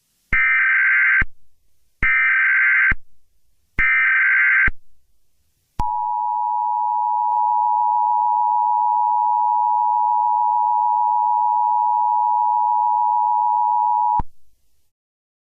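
Emergency Alert System tones: three short bursts of SAME header data, each about a second long, then the two-tone EAS attention signal (853 and 960 Hz) held steady for about eight seconds and cutting off sharply.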